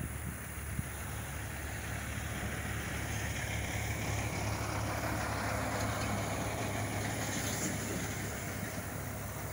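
Diesel freight locomotives running, a steady low engine drone with a broader rushing noise that builds toward the middle and eases a little near the end.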